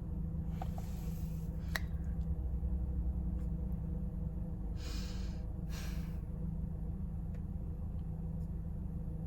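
A person breathing, with two short sharp breaths or sniffs about five and six seconds in, over a steady low hum.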